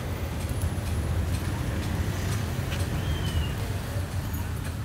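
Busy street ambience: a steady low rumble, like passing traffic, with faint background voices and a few light clicks.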